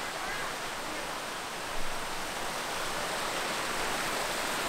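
Steady rushing of a mountain creek flowing over rocks, with a brief thump a little under two seconds in.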